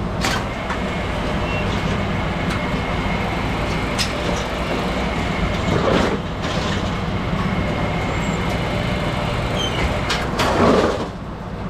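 Brunswick pinsetter running through a strike cycle, the detector rod sensing no standing pins so the machine goes on to set a new rack. A steady machine drone with scattered metal clicks and knocks, and louder clattering about six seconds in and again near the end.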